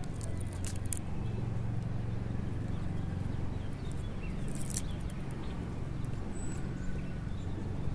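A steady low hum, with a few short crackles and snaps about half a second in and again near the middle, as a rooted Echeveria elegans offset is pulled and broken away from its colony.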